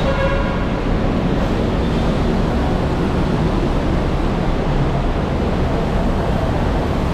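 Steady low rumble of road traffic under a concrete flyover, mixed with wind noise on the microphone.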